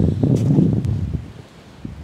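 Wind buffeting the microphone as a rough low rumble that dies down after about a second, with a couple of light knocks in the middle.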